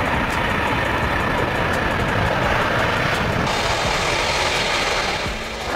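Boeing 747 jumbo jet's four jet engines running steadily as the airliner rolls along the ground, a full whooshing roar whose high hiss grows brighter about three and a half seconds in and dips slightly near the end.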